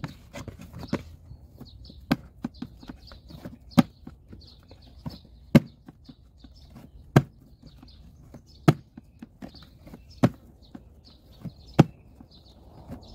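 Wet pita bread dough kneaded by the slap-and-fold method in a plastic tub: a sharp slap of dough against the plastic about every second and a half, with softer handling and squelching sounds between.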